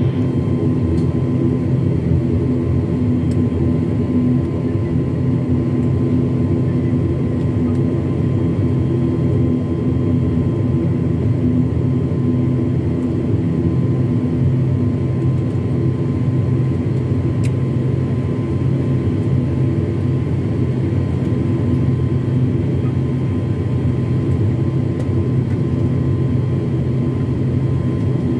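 Cabin noise of an ATR 72-600's twin Pratt & Whitney PW127 turboprops running at low power while the aircraft taxis after landing: a steady, even drone with a few held humming pitches and a faint higher whine.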